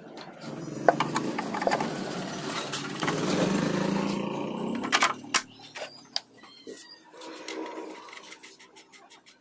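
Metal parts clinking, scraping and rattling as a motorcycle front wheel is fitted back over its drum-brake shoe plate. The busiest stretch lasts about four seconds, then single clicks and knocks follow.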